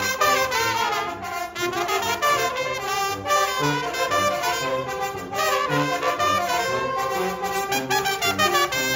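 Village brass band playing: trumpets, trombones and alto saxophones carry the melody in sustained notes over a repeating bass line from the low brass.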